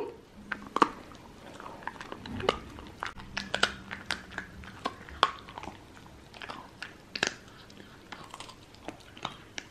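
Jack Russell terrier chewing a hard bone-shaped dog treat: irregular crunches and clicks of its teeth, several a second.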